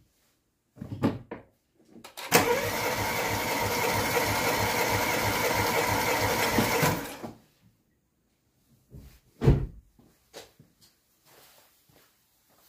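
Starter motor cranking a small petrol engine with its spark plugs out and a compression gauge screwed into a plug hole, for about five seconds, with an even pumping pulse: a compression test, whose reading is taken as good. A few short knocks come before it, and a sharp knock a couple of seconds after it.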